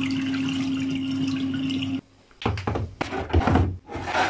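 Condensed water pouring in a steady stream from a tumble dryer's plastic water tank into a sink. About halfway through it cuts off, and several plastic clunks and knocks follow as the tank is pushed back into its drawer in the dryer.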